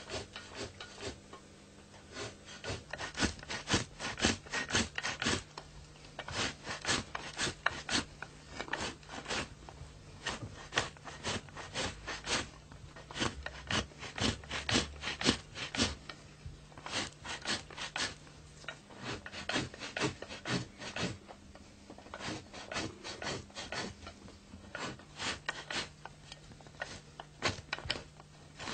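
A sheepskin hide being drawn and rubbed by hand over a wooden post during hand tanning, working the skin to soften it. The result is repeated dry rasping strokes, about one to two a second, with brief pauses.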